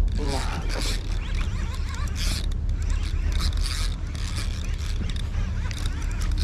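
Shimano Ocea Jigger conventional jigging reel being cranked in short turns during slow jigging, its handle and gears whirring and creaking in repeated bursts over a steady low rumble.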